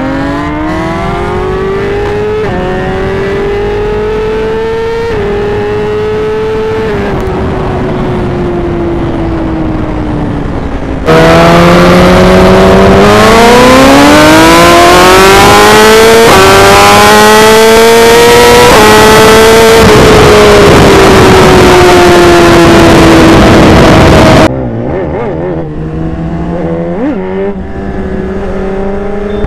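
BMW S1000RR inline-four engine with a full Akrapovic exhaust accelerating hard through the gears: the pitch climbs in each gear and drops at each quick upshift, then falls away steadily as the throttle is rolled off, and the pattern repeats. Through the middle stretch it is much louder, with heavy wind rush.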